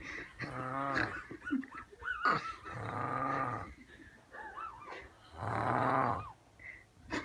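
A man snoring heavily in his sleep: four rough, growling snores about every two and a half seconds, with short whistling breaths between them.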